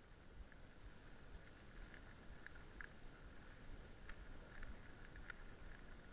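Faint, muffled riding noise of a mountain bike on a dirt forest trail picked up by an on-bike action camera: a low rumble from the trail under the tyres, with scattered light clicks and rattles from the bike.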